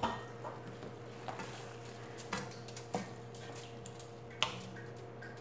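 Wooden spoon stirring a watery potato and chickpea curry in a non-stick pot, with about half a dozen light, irregular knocks of the spoon against the pot over a faint steady hum.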